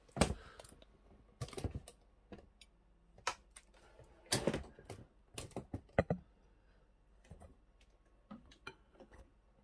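Laptop keyboard keys being pressed: a dozen or so separate taps and clicks at an uneven pace, with pauses between them.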